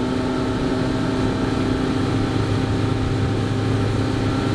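Motorboat engine running steadily at cruising speed, a constant hum with a light rush of water and air over it.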